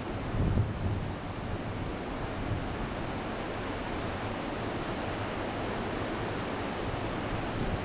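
Big typhoon swell breaking on a beach: a steady wash of surf noise, with wind buffeting the microphone and a low surge about half a second in.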